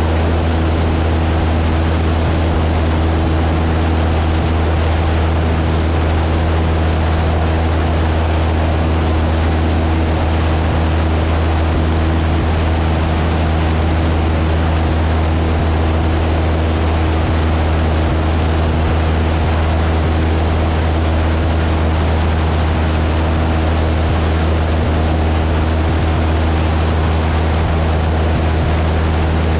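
Cessna 172's piston engine and propeller running steadily in flight: a loud, even drone with a low hum, under a constant hiss of rushing air.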